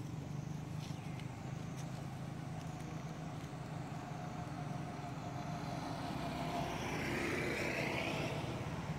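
Motor vehicle engine running steadily nearby, with a vehicle passing close by; its whine rises and falls and is loudest about seven to eight seconds in.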